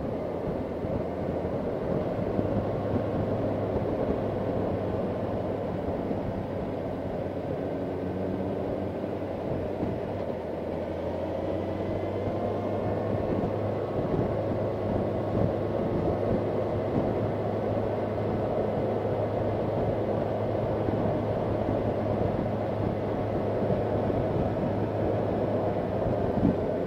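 Motorcycle on the move: the engine runs steadily with small changes in pitch, under constant wind and road noise heard from the rider's seat.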